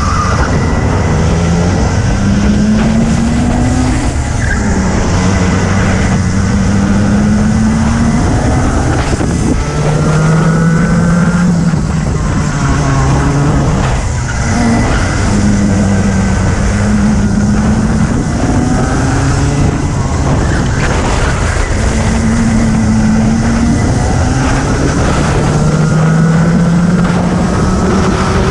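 Racing kart's engine heard onboard at racing speed, its note climbing over a few seconds at a time and then dropping away, again and again, as it accelerates out of corners and slows for the next.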